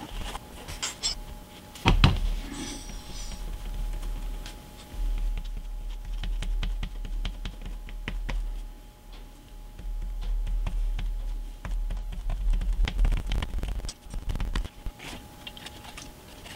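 Hands handling thin wood trim strips and a paper towel on a cutting mat: scattered small taps, clicks and rustles, with a sharper knock about two seconds in. A faint steady hum runs underneath.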